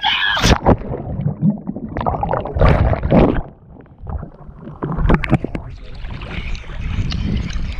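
Water splashing and sloshing against a handheld waterproof action camera at the surface, with several sharp knocks and a low rumble as the camera is jostled; a short lull about halfway through.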